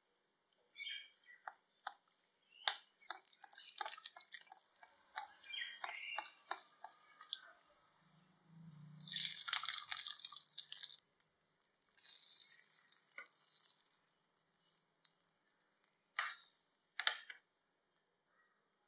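Cashews frying in hot ghee in a pan: a crackling sizzle that comes in waves, loudest about halfway through. Near the end, two sharp knocks of a metal spoon against the pot.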